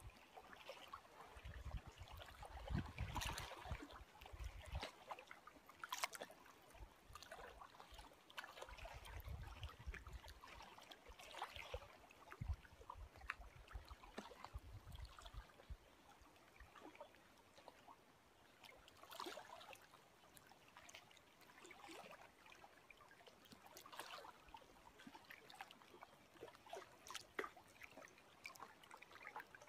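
Small lake waves lapping and splashing softly and irregularly, with wind rumbling on the microphone in gusts during the first half.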